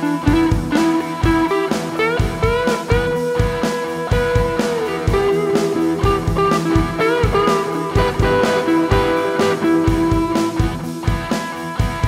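Electric guitar played through an overdrive pedal, a bluesy lead with string bends over a steady drum beat. Partway through, a delay is added to the guitar.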